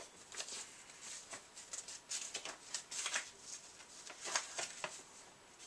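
Paper and plastic packaging rustling and crinkling in irregular short crackles as a wrapped, rolled print is handled and a paper sheet is pulled free.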